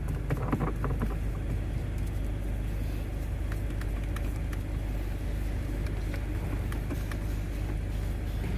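Steady low rumble of a car idling, heard inside the cabin. In the first second there are a few light clicks as the gear shift lever is handled.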